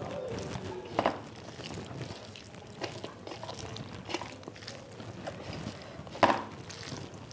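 Fingers squishing and mixing cooked rice with mashed eggplant on a metal plate: soft, irregular wet squelches and small clicks of the hand against the plate, with two louder clinks, about a second in and, loudest, about six seconds in.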